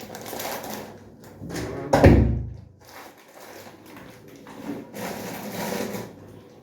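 Household handling noises: rustling, with one loud low thump about two seconds in.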